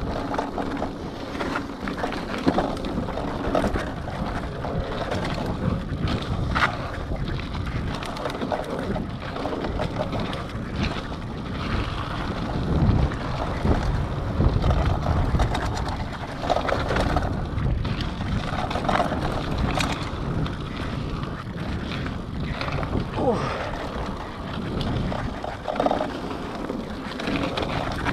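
Scott Scale 970 hardtail mountain bike rolling down a dirt trail: steady tyre rumble with scattered clicks and rattles over bumps, and wind buffeting the microphone.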